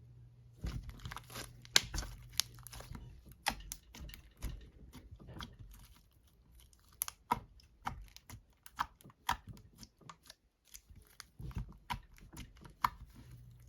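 Homemade deodorant slime being squished and stretched by hand, making many irregular sticky clicks and pops, with a short lull about six seconds in.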